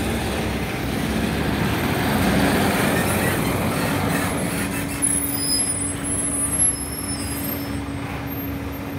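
Street traffic: a box truck pulls away close by, its engine and tyres swelling to a peak early on, then engines idling in traffic with a steady hum. A few brief high-pitched squeals come about halfway through.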